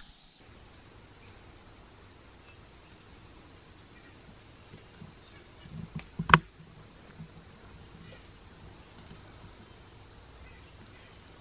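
A single sharp, loud crack about six seconds in from a suppressed Savage FVSR bolt-action .22 LR rifle fitted with a Dead Air Mask suppressor, over a low woodland background with faint high chirps.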